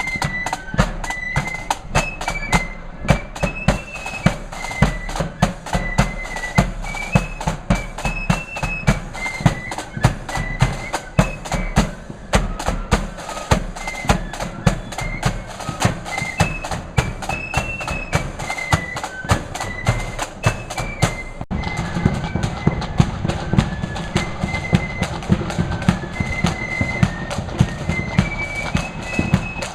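Marching flute band playing a tune: flutes carry a high melody over a steady, rapid beat of snare and bass drums.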